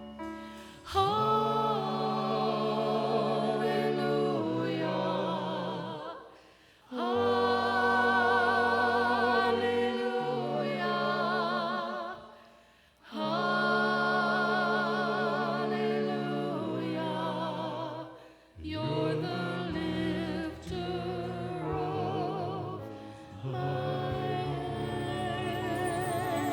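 Worship song: singing voices with musical accompaniment, held notes wavering with vibrato, in phrases broken by short pauses about every six seconds.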